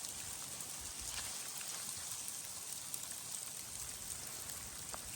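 Wind-blown snow pattering: a fine, even hiss with scattered light ticks.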